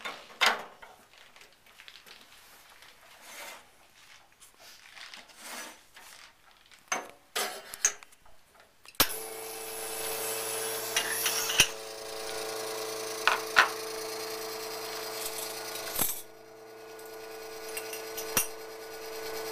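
Scattered clicks and knocks as the portafilter and cups are handled at an espresso machine. About halfway through, the machine's pump starts with a sudden steady hum as the espresso shot brews, with a few sharp clinks over it.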